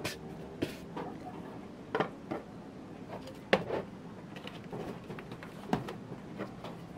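A stretched canvas handled and set down on a wooden table: a handful of knocks and taps, the sharpest about three and a half seconds in.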